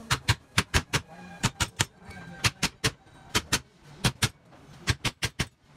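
A rapid series of sharp knocks, coming in irregular clusters of two or three, about three to four a second.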